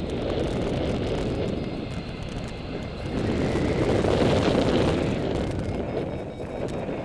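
Airflow buffeting the microphone of a paraglider pilot's harness-mounted camera in flight, a steady rush that swells about four seconds in.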